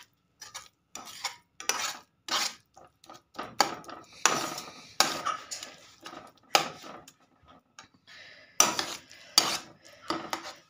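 Slotted spatula scraping and knocking against a stainless steel frying pan in short, irregular strokes, mashing cooked dates into a paste.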